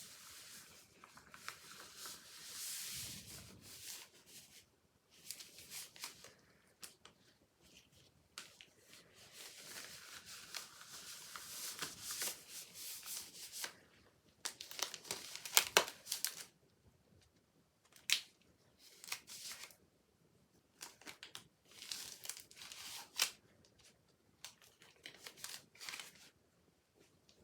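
Intermittent crinkling and rustling of something being handled, coming in irregular bursts with short pauses between them and a few sharper clicks about halfway through.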